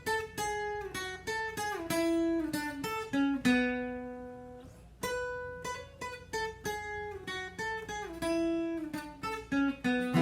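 Fender steel-string acoustic guitar playing the song's instrumental melody riff, the part that a sitar plays on the original, as single plucked notes with short slides between some of them. About four seconds in, one note is left to ring and fade before the line picks up again.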